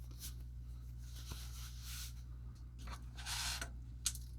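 Faint rustling and a couple of small clicks as a metal watch bracelet is handled and put on a wrist, over a steady low hum.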